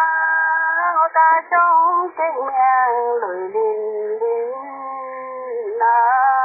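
A voice singing a slow folk song with long, drawn-out notes that waver and bend. It drops lower and quieter in the middle and rises again near the end. No instrument is heard.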